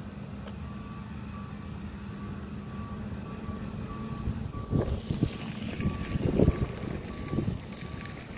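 A vehicle reversing alarm beeping evenly, about two beeps a second, over the steady low hum of farm machinery running. From about halfway through, louder uneven rumbles come in.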